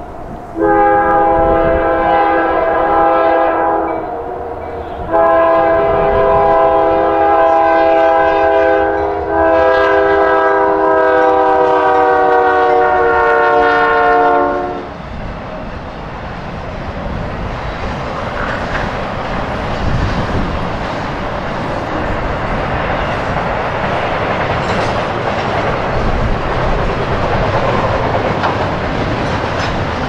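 A Norfolk Southern freight locomotive's chime horn sounds a chord in three long blasts for a grade crossing, the last one dropping in pitch as the locomotives pass. Then the train's intermodal cars roll steadily by, wheels clicking over the rail joints.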